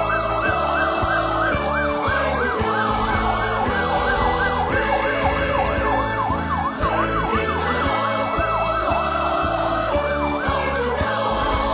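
Police escort car's electronic siren yelping, its pitch sweeping up and down rapidly and changing speed, with music playing underneath.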